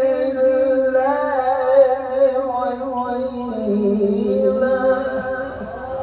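A male qari's voice reciting the Quran in the melodic tilawah style into a microphone. He holds long notes with ornamented turns, dips to a lower note around the middle, then climbs back up.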